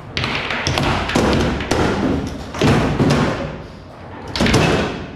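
Frimm Super Faster foosball table in play: several loud thumps and knocks as the ball is struck by the plastic players and the rods are worked, with a clatter between the hits.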